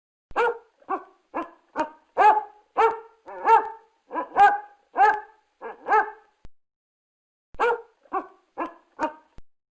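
A dog barking in a rapid series of short barks, about two a second, pausing for about a second before a few more barks near the end.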